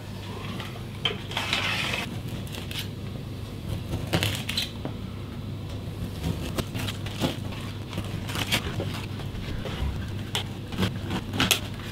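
Metal scraper blade scoring and scratching into an old lath-and-plaster wall: a run of irregular scrapes and small ticks.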